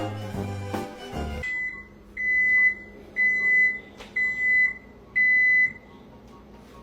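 Hip-hop music stops abruptly, followed by an electronic beeper sounding a high, steady tone: one short beep, then four longer beeps about a second apart.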